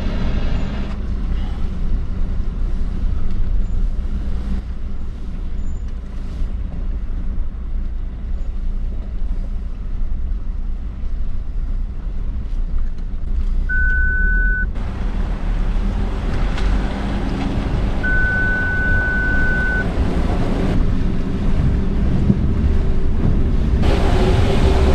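Ford Ranger 4x4 ute's engine running low and steady as it creeps through a deep, flowing creek crossing with the rear locker engaged. Past the middle an electronic warning beep sounds twice, a short tone and then a longer one, and in the last second water rushing and splashing around the vehicle comes up louder.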